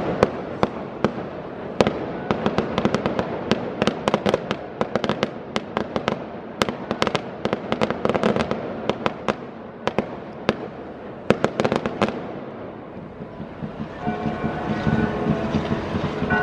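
Daytime fireworks: a rapid, irregular crackle of sharp bangs from bursting shells for about twelve seconds, then a short lull. After that, several steady whistling tones set in.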